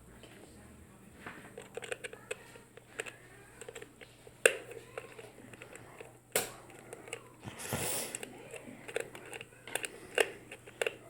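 Scattered sharp clicks and rustles of plastic being handled, from a toy remote control and its packaging. The loudest click comes about four and a half seconds in, and there is a longer rustle near eight seconds.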